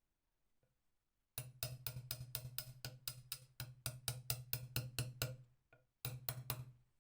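Rapid, even mechanical clicking, about five or six clicks a second over a low hum, for about four seconds. It stops, then starts again briefly near the end.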